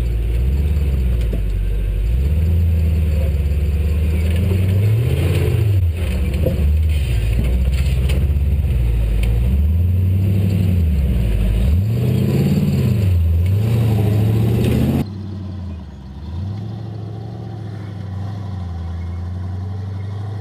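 Off-road 4x4 competition truck's engine revving up and down again and again as it crawls over rocks and concrete. About fifteen seconds in the sound drops suddenly to a quieter, steadier engine note.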